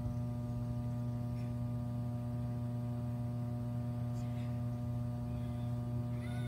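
Steady electrical mains hum: a constant low drone with fainter steady tones above it, and a few faint brief sounds.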